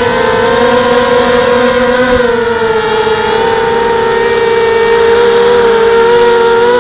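Quadcopter's SunnySky brushless motors and propellers giving a steady multi-toned whine, the pitches drifting slightly as the throttle shifts.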